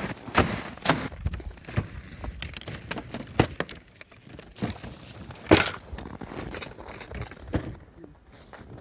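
A series of irregular knocks and crunches, with the loudest single knock about five and a half seconds in.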